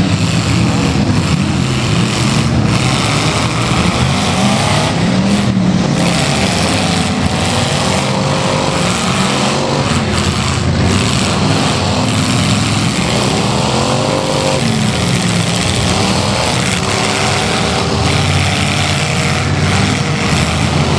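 Engines of several six- and eight-cylinder demolition derby cars revving hard, their pitch rising and falling, with a few sharp bangs from the cars hitting one another.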